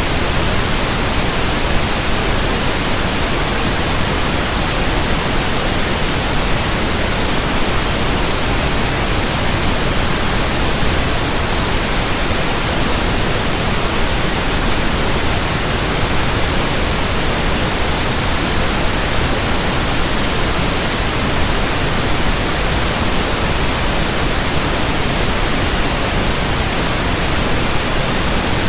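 Steady pink noise: an even, unchanging hiss spread across all frequencies.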